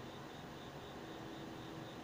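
Faint, steady background hiss of an empty elevated subway platform, with a faint steady hum.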